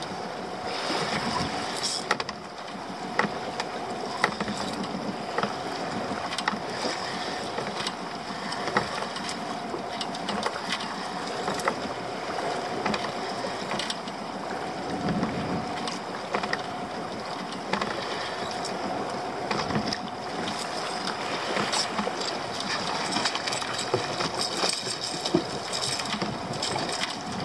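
Steady wind and sea noise around a small open boat, with a faint steady hum underneath and scattered short clicks and splashes.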